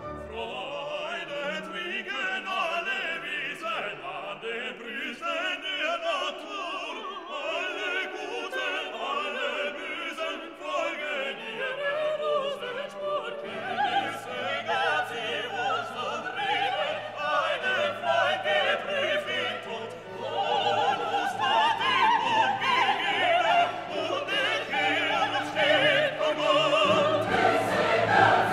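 Background classical music: sung voices over an orchestra, with a low bass part coming in about halfway through.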